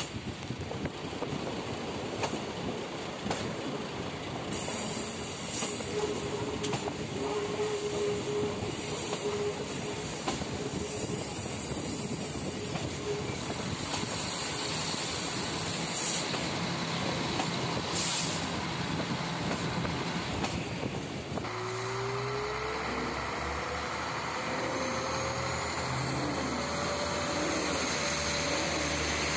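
Train running through a curving cutting, heard out of an open window: steady rumble of wheels on rails, with a high wheel squeal in the middle stretch. About three quarters of the way in the sound cuts to a train at a station pulling away, its engine note rising in pitch.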